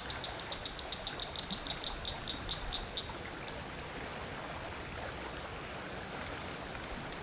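Creek water running steadily. For about the first three seconds a series of sharp high clicks sounds over it, coming faster and then stopping.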